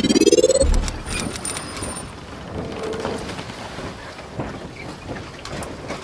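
Intro logo sound effects: a rising whoosh that ends in a low thump, followed by a shimmering, crackling hiss with scattered clicks and short tones.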